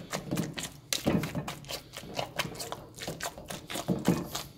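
Wire potato masher pressing down through cooked potatoes and peas in a stainless steel bowl, in quick irregular taps and knocks against the bowl.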